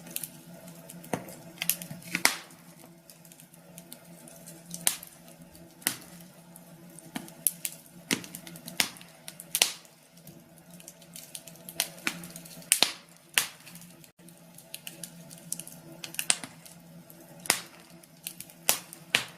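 Fire in a fireplace crackling, with irregular sharp pops and snaps, over a faint steady low hum.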